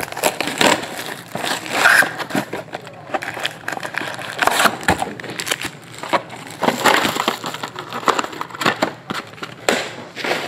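Crinkling, rustling and tearing of shrink-wrap and a cardboard trading-card box being opened by hand, with scattered clicks as foil card packs are pulled out and set down in a stack.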